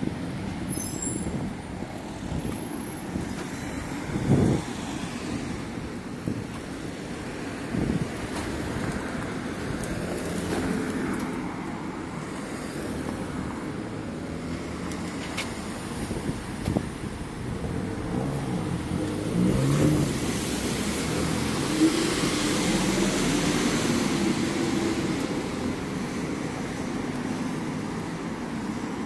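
Urban traffic noise: a steady hum of road vehicles, growing louder for several seconds past the middle as engine noise passes, with a few short thumps.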